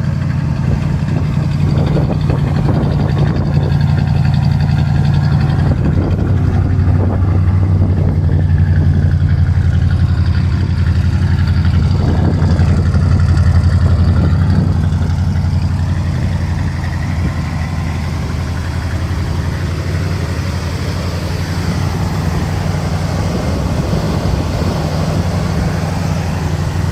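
Car engine idling as it warms up, with a miss that the owner says is very present at idle, whether the choke is on or off.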